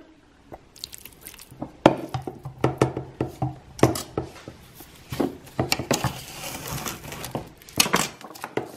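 Cling film crinkling and crackling with irregular clicks and light taps as a shredded lamb and onion filling is spread over it.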